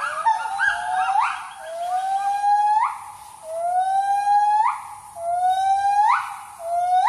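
Gibbons calling: a series of long rising whoops, each ending in a sharp upward leap, about one every second and a half, with several calls overlapping at first.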